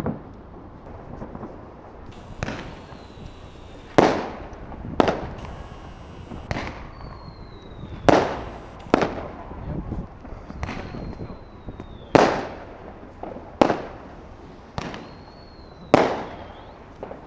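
Fireworks shells bursting overhead: about a dozen sharp bangs every second or two, each trailing off in an echo, with a few faint falling whistles between them.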